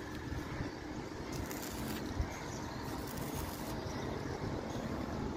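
Wind rumbling and buffeting on the microphone, an uneven low noise, with one faint click about two seconds in.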